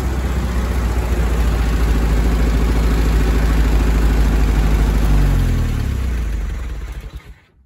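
1967 GAZ-69's four-cylinder side-valve petrol engine running close by, a loud, low, steady engine note. About five seconds in the engine note falls and the sound dies away.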